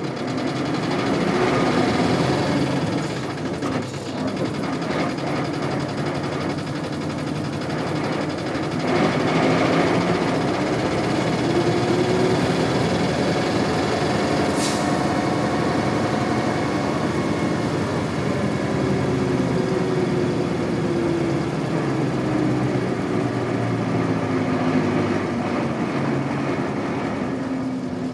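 Isuzu Cubic city bus's 8PE1 V10 diesel engine running, then pulling harder about a third of the way in, its pitch rising and falling as the bus gathers speed through the gears. A brief hiss about halfway through.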